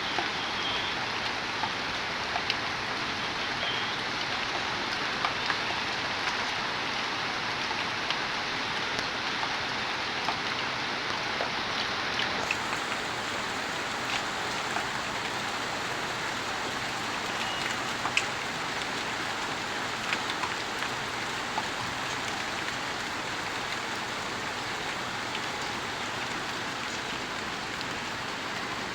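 Steady rain falling, with scattered louder drops hitting a surface.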